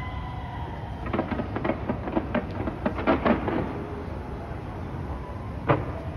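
Fireworks going off: a quick run of crackling pops from about one to three and a half seconds in, then a single sharp bang near the end, over a steady low rumble.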